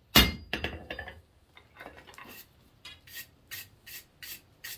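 Hand hammer striking hot half-inch square mild steel on an anvil, knocking down the corners of the taper to take it from square to octagonal. A few hard blows in the first second, then a run of lighter strikes about three a second.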